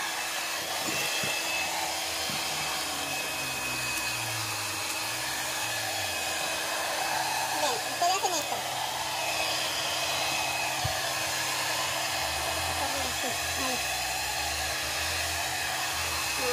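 Handheld hair dryer blowing hot air steadily, its nozzle held close to an old vinyl floor tile to soften the adhesive underneath.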